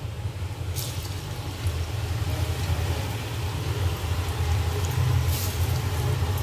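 Arbi-leaf pakoras frying in hot oil in a kadhai, sizzling louder as they go in, with two brief sharper hisses, about a second in and near the end, over a steady low rumble.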